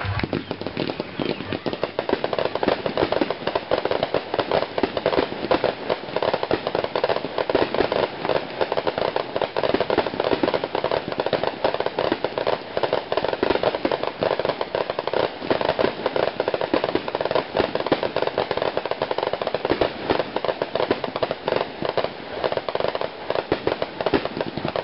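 Aerial fireworks going off in a dense, continuous barrage of rapid pops and bangs with no pause.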